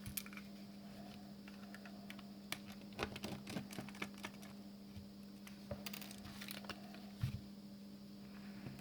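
Scattered small clicks and taps of a precision screwdriver and hands working the tiny screws and plastic parts of a headphone hinge, with a cluster of clicks about three seconds in and more around six seconds, over a steady low hum.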